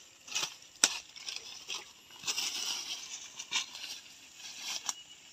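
Footsteps through dry leaves and undergrowth: rustling, with a few sharp snaps of twigs underfoot.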